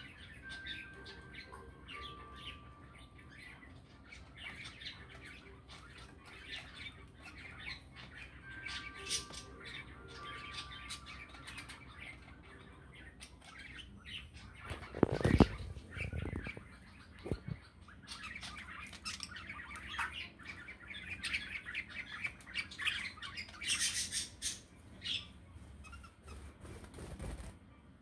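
Pet budgerigars chirping and chattering softly, with a few short whistled notes, growing busier in the second half. About halfway through, a brief loud flurry of wing flaps.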